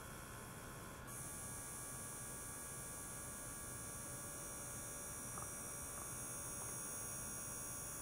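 Steady electrical hum from running laboratory equipment. About a second in, a high-pitched whine switches on and the sound gets slightly louder.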